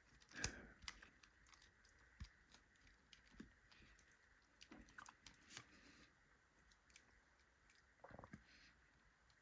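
Faint, scattered small clicks and scrapes of metal lock parts and tools being handled while pin-tumbler pins are worked out of a disassembled lock core.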